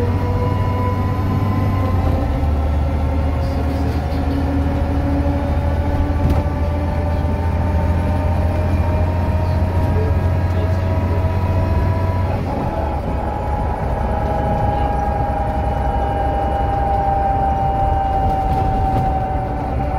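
DAF DB250 Lowlander double-decker bus heard from inside the lower deck: diesel engine running under load while the axle's whine rises steadily with speed. About twelve seconds in the engine note drops back and the loud axle whine carries on, slowly falling in pitch as the bus eases off.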